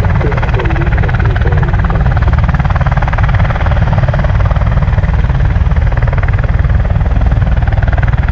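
US Marine Corps V-22 Osprey tiltrotors running, their big proprotors giving a deep, rapid, steady thump under the turbine noise.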